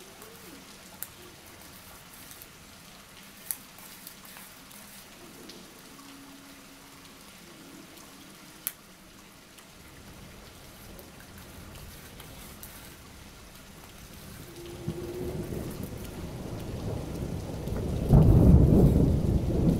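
Steady rain hiss with a few sharp clicks, then a low rumble of thunder that swells from about halfway and is loudest near the end.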